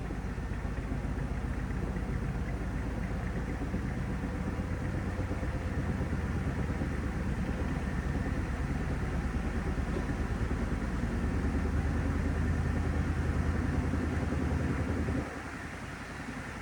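Panasonic top-loading washing machine running with a steady motor hum. It drops away abruptly about fifteen seconds in.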